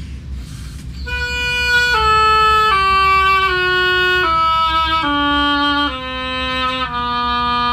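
Oboe playing a slow descending one-octave diatonic scale, eight notes from B down to the low B, entering about a second in, with the last note held long. It is a playing test after key adjustments, played with light finger pressure to find leaking pads or binding keys, and the instrument checks out well.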